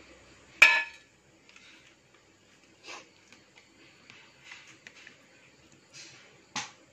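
One sharp clink of kitchenware with a short ring about half a second in, then faint soft handling sounds as hands lift and work a sheet of oiled porotta dough.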